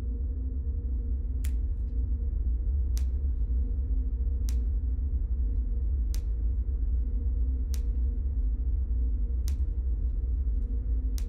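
A low, steady rumbling drone with held tones, marked by a sharp click about every second and a half, seven in all, like a slow tick.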